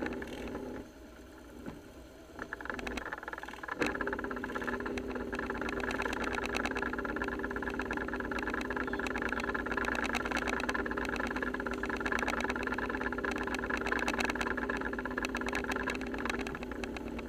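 Motorcycle engines idling steadily with an even pulsing beat. The sound drops away for a couple of seconds about a second in, then returns with a sharp knock about four seconds in.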